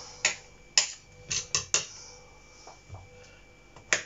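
Kitchen knife slicing a king bolete (porcini) mushroom, the blade tapping down onto a plastic cutting mat with each cut: a run of sharp, irregular taps, a quick cluster of three in the middle and a loud one near the end.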